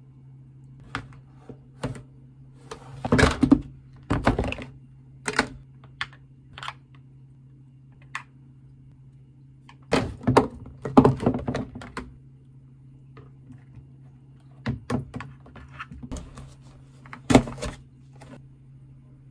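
Plastic food-storage containers and lunchbox trays handled on a countertop: scattered clicks, taps and knocks as clip lids are opened and boxes are picked up and set down, in three busier clusters, over a steady low hum.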